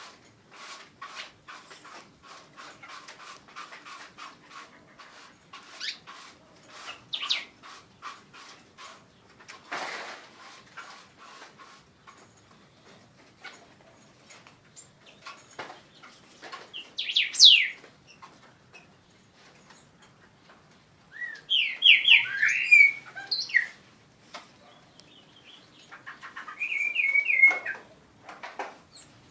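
Pet birds chirping: a run of quick, faint chirps and clicks, then three louder bursts of high, sweeping calls in the second half.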